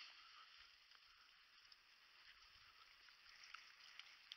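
Near silence: a faint, even outdoor hiss with a few faint ticks scattered through it.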